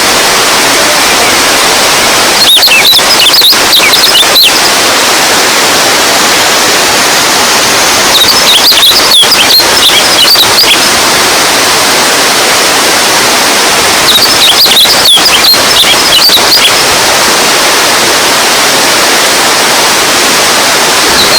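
Running water rushing steadily, a loud even hiss, with three short spells of high chirping notes over it.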